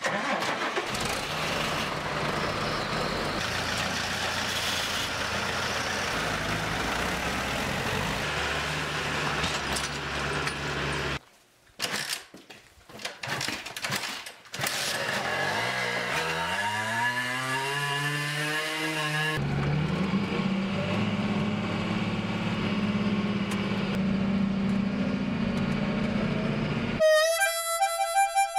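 Tractor engines running steadily. Then a small motorcycle is started: a few clicks, the engine catches and revs up in a rising whine, then runs steadily. Harmonica music comes in near the end.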